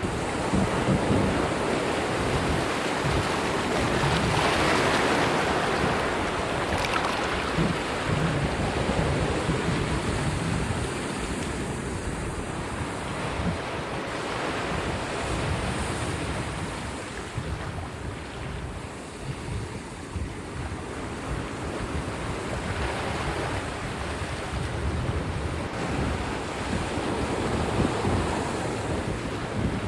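Sea waves breaking and washing up a sandy beach in foamy surf, the roar swelling and easing as each wave comes in, with wind buffeting the microphone.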